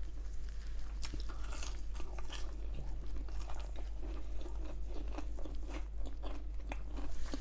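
Close-up chewing of crisp fried samosa pastry: a steady run of small, irregular crunches and crackles from the mouth.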